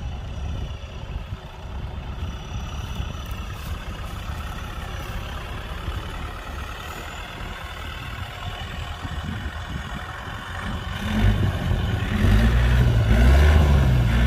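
Kubota tractor's diesel engine running steadily, then revving up louder about eleven seconds in, its pitch wavering.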